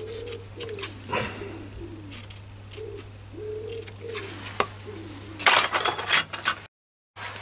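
Scissors snipping through soft foam in short clicks, with a dove cooing over and over in the background. A louder rustling stretch comes near the end as the cut foam is set down.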